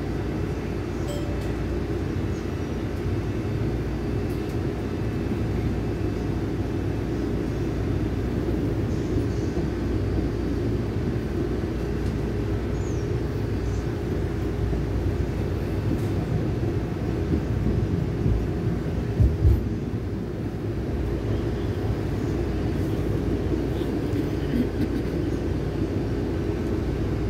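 Steady low rumble of a moving vehicle heard from inside it, with two brief low bumps about two-thirds of the way through.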